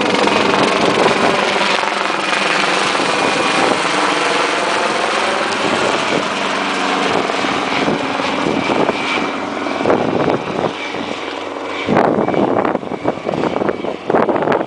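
Helicopter running close by, a loud steady rotor and engine noise. It turns choppier and gustier near the end.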